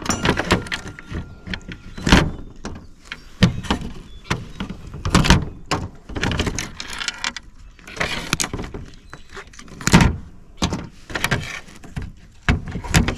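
Irregular clanks, knocks and clatter of small metal parts and hand tools being handled, knocked and dropped while a device is stripped for scrap, with a few short scraping stretches in the middle.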